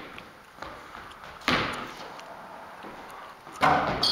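A basketball bouncing twice on a hardwood gym floor, about two seconds apart, each bounce echoing in the hall. A short squeak near the end.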